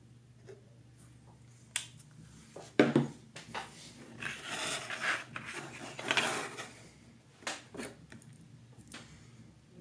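Hands handling small craft tools and a plastic paint bottle on a cutting mat: a sharp knock just under three seconds in, two stretches of rubbing and rustling in the middle, and scattered light clicks and taps.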